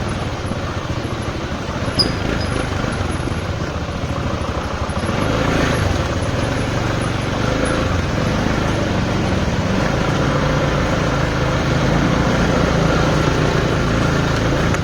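Road traffic at close range: vehicle engines running and idling in a slow traffic jam, with one short sharp click about two seconds in.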